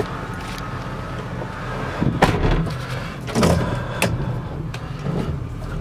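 Ford E350's 5.4-litre V8 idling steadily, heard from inside the cab, with a few sharp knocks about two, three and a half and four seconds in.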